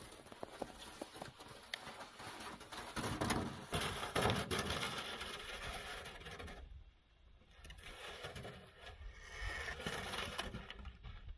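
Footsteps crunching in packed snow and a plastic sled scraping over it as it is dragged along, in an uneven run of scuffs and scrapes, loudest a few seconds in.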